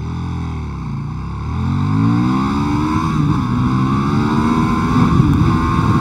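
2016 KTM Super Duke R's V-twin engine under hard acceleration, its pitch climbing through the revs and dropping back briefly at each upshift.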